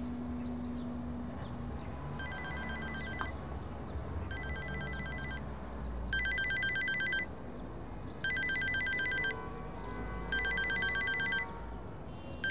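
Smartphone ringtone in the style of an old telephone bell: trilling rings about a second long, every two seconds. The first two rings are fainter, and the rest are louder from about six seconds in, when the phone is pulled out of the pocket.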